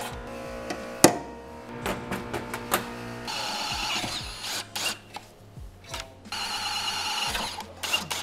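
Cordless drill boring quarter-inch holes into the metal underside of a classic Mini, in two runs of about a second each, the first a little past three seconds in and the second past six, with a high wavering whine as it cuts. Sharp clicks and knocks come between the runs, the loudest about a second in.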